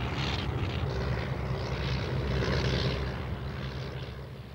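Light single-engine propeller plane landing, its engine and propeller running steadily, then fading away near the end.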